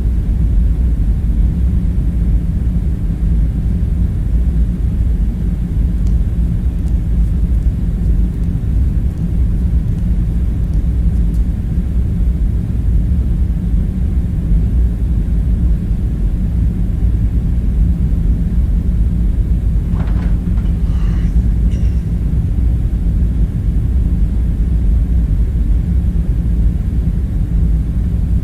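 Steady low rumbling drone of a room-ambience bed, with a faint brief clink or rustle about twenty seconds in.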